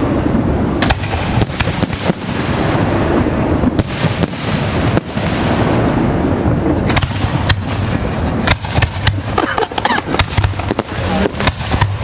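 Fireworks display: aerial shells going off, many sharp bangs in quick succession over a continuous rumble, growing denser in the second half.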